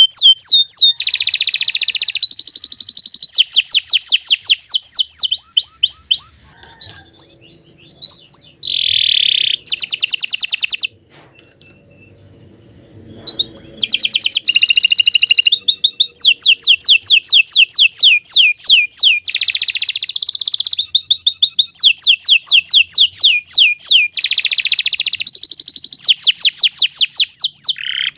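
Domestic canary singing a long, loud song of rapid high-pitched trills and rolls, phrase after phrase. It breaks off for a couple of seconds about a third of the way in, then resumes.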